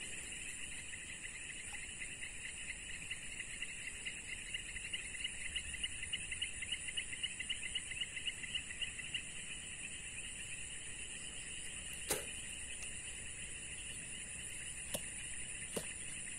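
Insects calling: a rapid pulsing trill and a steady high-pitched whine. A single sharp click sounds about twelve seconds in, and a couple of faint ticks near the end.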